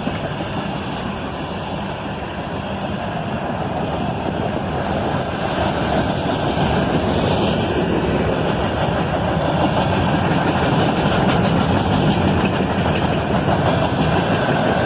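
Freight train cars rolling past, the steel wheels on the rails making a steady rumbling noise that slowly grows louder.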